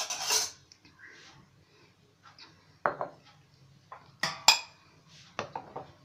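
Glassware handled on a wooden chopping board: a short clatter at the start, then a few separate clinks and knocks, the loudest pair about four and a half seconds in, as a glass bowl is lifted away and glass tumblers are set down.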